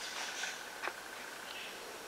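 Quiet outdoor ambience: a steady hiss with a faint high whine, and one sharp click a little under a second in.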